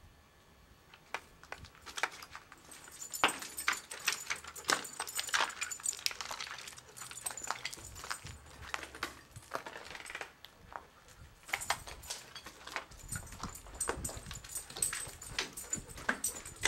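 Footsteps crunching irregularly over a floor strewn with broken plaster and debris, with a dog making small sounds close by.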